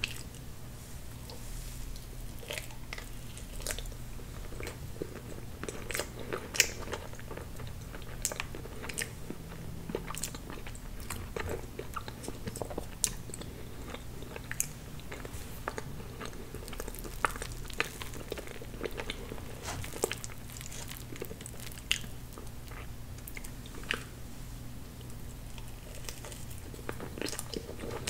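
Close-miked chewing and wet mouth sounds of someone eating soft, creamy tiramisu cake from a metal spoon, with small crunches and many sharp clicks scattered throughout. A steady low hum runs underneath.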